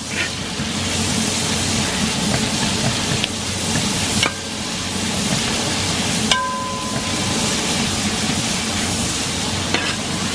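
Sliced onions and curry leaves sizzling steadily in hot coconut oil in a wide uruli, stirred with a metal spatula.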